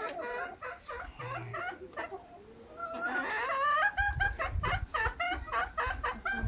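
A domestic hen singing: a run of short clucking calls, several a second, that grow louder about halfway through. A low rumble joins near the end.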